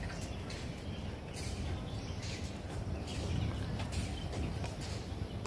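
Outdoor ambience: a steady low rumble with several brief rustling noises, and a few faint bird chirps.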